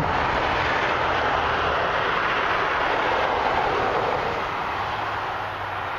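Highway traffic going by: steady tyre and engine noise of passing vehicles, easing off a little near the end.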